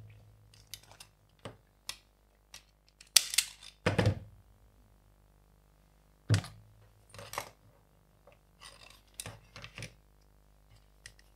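Irregular clicks, taps and knocks from handling a cordless soldering station and its iron on a workbench, including presses on the station's control buttons. The loudest knocks come about three to four seconds in and again a little after six seconds.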